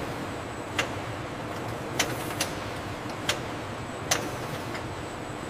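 Steady factory machinery noise with sharp clicks at uneven intervals, five of them, from gelatin-sheet forming machinery with steel rollers.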